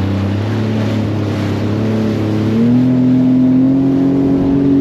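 Jet ski engine running at low speed, then given more throttle about two and a half seconds in, its pitch stepping up and holding steady.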